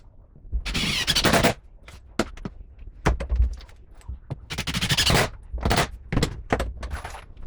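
Cordless driver running in two short bursts, about half a second in and again about four and a half seconds in, driving 30 mm screws through the cabinet side into the wardrobe panel, with short knocks and clatter between.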